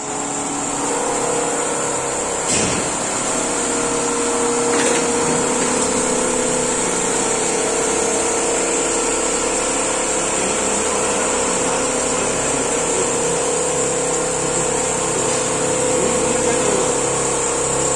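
Richpeace computerized single-head quilting machine running, its sewing head stitching steadily through a comforter with a constant mechanical hum and a held tone. Two short clicks come about two and a half and five seconds in.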